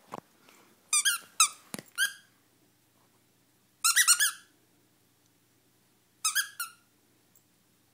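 Squeaker in a plush elephant toy squeezed in quick runs: four squeaks about a second in, a fast cluster around four seconds, and a few more after six seconds. A couple of dull knocks near the start.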